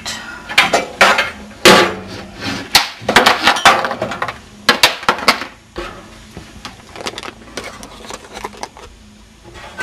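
Metal clinks, knocks and scrapes of a steel PC case and expansion-slot bracket as an old FireWire PCI card is worked loose and pulled out of its slot. The knocks come thick and loud for the first five seconds or so, then thin out to a few quieter ones.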